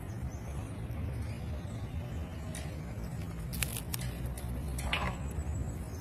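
Severe macaw cracking and chewing a peanut shell in its beak: a few sharp crunches and clicks, most of them past the halfway point, over a steady low rumble.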